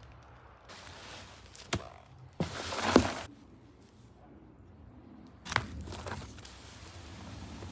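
Cardboard boxes being handled and unpacked. There is a knock, then a longer scraping rustle that ends in a thump about three seconds in, then a tap and continued rustling of cardboard flaps being opened.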